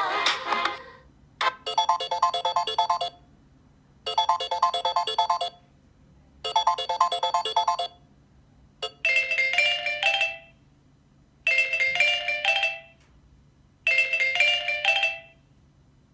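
Samsung Galaxy Note 9 ringtones playing through the phone's speaker: after a click, one short chiming electronic phrase repeats three times with about a second's pause between each. A second click about halfway through brings in a different ringtone, whose short phrase also repeats three times.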